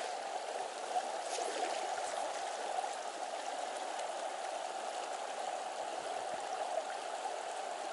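Shallow rocky river running over stones: a steady rush of water.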